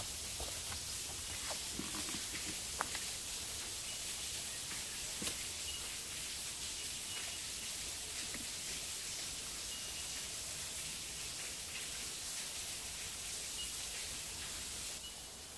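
Forest ambience: a steady high-pitched hiss that eases near the end, with a faint short high chirp recurring every second or two and a few soft clicks from steps on the track in the first five seconds.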